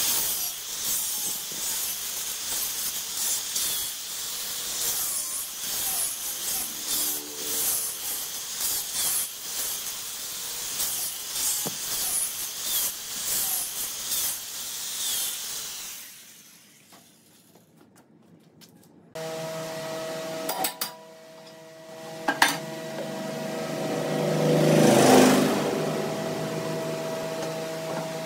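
Hand-held angle grinder with a sanding disc grinding against a turned wooden vase form on the lathe: a high, hissing grind that swells and dips as it is pressed on and eased off, stopping about sixteen seconds in. After a short lull, a steady electric hum with a few sharp knocks takes over.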